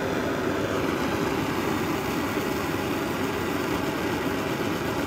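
Pressure burner of a brass Radius 20 pocket camping stove running, a steady, even rushing noise of the lit blue flame.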